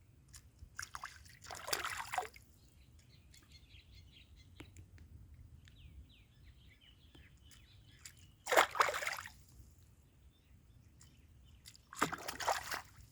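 Water splashing in three short bursts of about a second each, the middle one the loudest. Between them come faint, rapid bird chirps.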